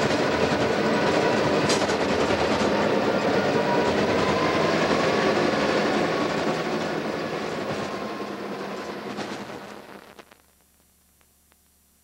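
Caterpillar D8 bulldozer's diesel engine and steel tracks running, heard from inside the cab. The noise fades from about six seconds in and drops to near silence at about ten and a half seconds.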